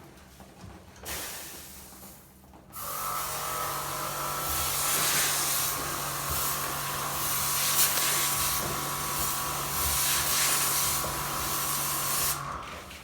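High-pressure washer spraying water into an air conditioner during cleaning: a steady hiss of the jet over the hum and whine of the pump motor. It starts about three seconds in after a brief spurt, and cuts off near the end.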